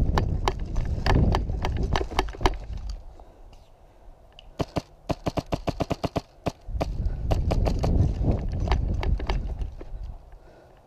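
Airsoft rifle firing a rapid string of shots, about ten a second for under two seconds, midway through. Before and after it, running footsteps and gear rattle over a low rumble.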